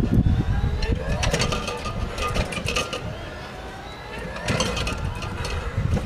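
CargoMaster Vario electric stairclimber carrying a fridge up concrete steps: its motor whines, rising and falling in pitch as the climbing mechanism cycles. Bursts of clicks and knocks come about every one to two seconds as it steps up each stair.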